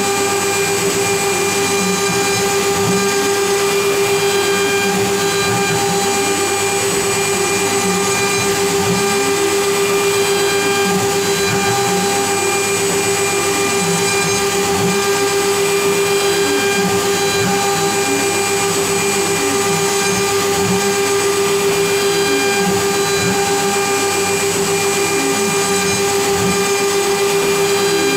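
CNC Router Parts CRP4848 CNC router carving wood: the router motor runs with a steady high whine, under which lower whines keep rising and falling in pitch as the axes move and change direction during the contour cut.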